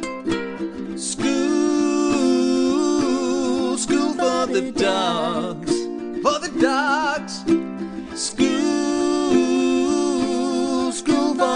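Music: a tune of plucked strings with a held melody line that wavers about halfway through.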